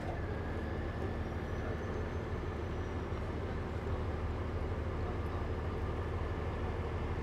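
Heavy-duty rotator tow truck's diesel engine running steadily with a constant low hum, while it powers the truck's recovery boom and winch.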